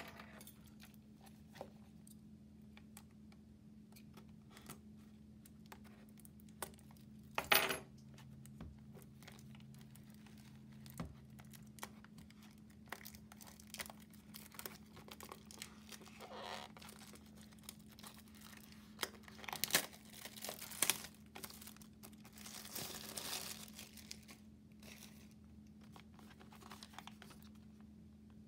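Plastic shrink wrap being torn and peeled off a cardboard trading-card booster box, in scattered crinkling rustles, with a sharp crackle about seven seconds in and a busier stretch of rustling past the middle. A faint steady hum runs underneath.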